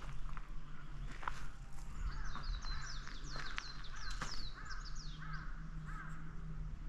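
Wild birds calling in woodland: a regular series of about eight arched call notes a little under half a second apart, with quick high chirps over them in the middle, a few faint clicks, and a steady low hum underneath.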